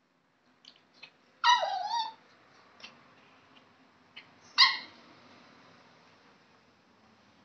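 Small curly-coated puppy giving two high-pitched yips. The first is longer and falls, then wavers in pitch; the second, about three seconds later, is short. A few faint clicks fall between them.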